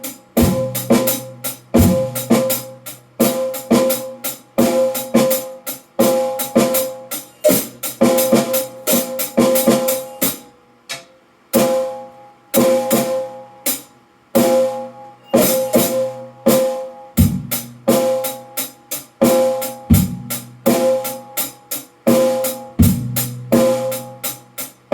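Drum kit played in a steady rhythm, with cymbal strikes and occasional deep bass drum hits. There is a short lull about ten seconds in.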